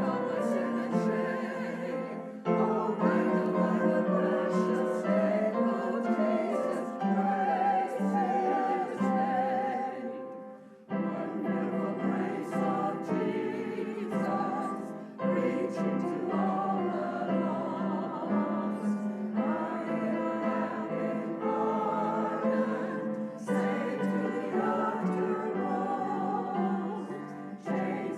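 Singing voices with vibrato over a piano accompaniment in a church service, continuous except for a brief pause about eleven seconds in.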